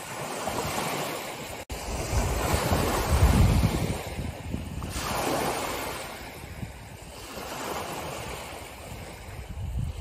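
Small sea waves breaking and washing up a pebbly shore, swelling and fading in several surges; the biggest, about three seconds in, has a low rumble. The sound drops out for an instant just under two seconds in.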